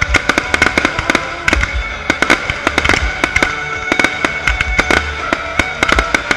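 Fireworks display: many aerial shells and crackling effects banging in quick, irregular succession, over music playing.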